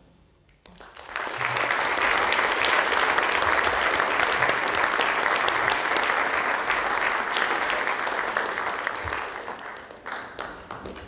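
Audience applauding, building up about a second in and tapering off near the end.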